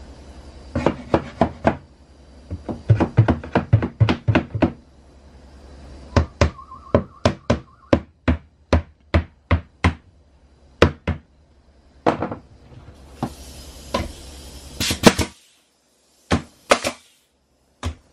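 A hammer tapping tongue-and-groove wood boards to seat them on a wall, in quick runs of taps and then steady blows about twice a second. Near the end come a few sharper single shots from a pneumatic nail gun fastening the boards.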